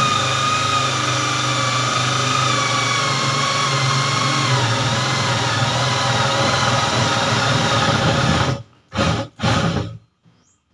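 Corded electric drill with a 19 mm wood bit boring through a wooden cabinet door, its motor running steadily under load with a whine that sags slightly in pitch as the bit bites. It stops about eight and a half seconds in, then gives two short bursts.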